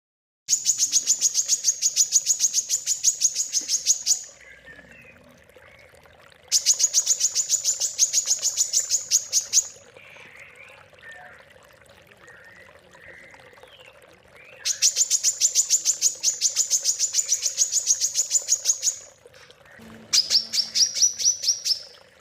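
A songbird giving rapid, high-pitched trills of evenly repeated notes, about seven a second, in four bursts of three to four seconds each. These are the kind of 'tembakan' volleys that song-contest judges look for. Softer chirps fall between the bursts, and the last burst is slightly lower and rises at its end.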